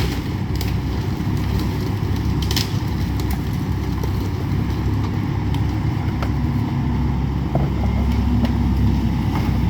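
Excavator's diesel engine running steadily while it knocks down a house, growing slightly louder near the end. A few sharp cracks and clatters of breaking debris come through, clearest about two and a half seconds in.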